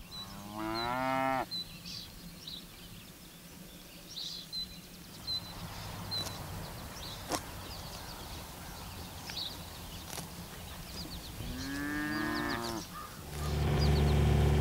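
Dairy cows mooing, two long calls about eleven seconds apart, with faint bird chirps in between. Near the end a small utility vehicle's engine comes in and runs steadily, louder than the moos.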